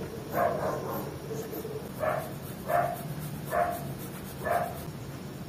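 A dog barking: five short barks, the last four less than a second apart.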